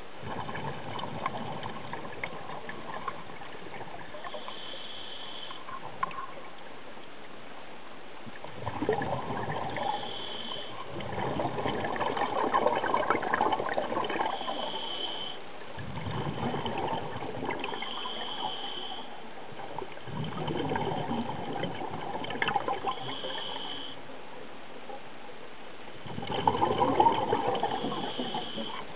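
A scuba diver's regulator breathing underwater: about five bursts of exhaled bubbles gurgling, each a few seconds long, with a short hiss from the regulator on each inhale between them.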